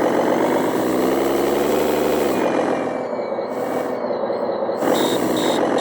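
RC truck sound module playing a simulated truck engine idle, rising in pitch about a second in and dropping back after a couple of seconds like a short rev. A brief hiss comes near the end.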